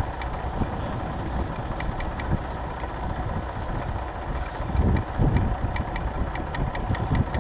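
Tractor engine running steadily, with a louder low throb a little past the middle.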